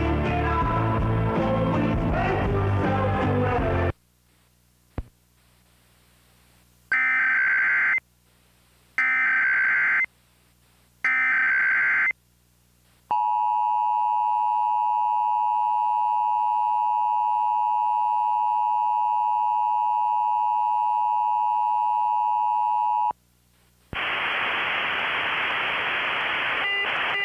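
Music stops about four seconds in. After a pause come three one-second bursts of Emergency Alert System SAME header data tones, then the EAS attention signal, a steady two-tone beep near 1 kHz lasting about ten seconds. Near the end a hiss of radio-like static starts.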